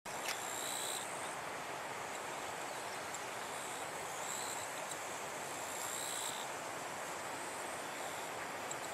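Rural outdoor ambience: a steady, even hiss with short, high buzzing calls that recur every couple of seconds, and a single click just after the start.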